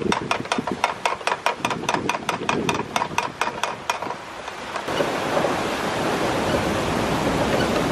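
Canal lock paddle gear being wound up with a windlass, its ratchet clicking about five times a second. About five seconds in, water starts rushing steadily through the raised paddle as the lock begins to fill.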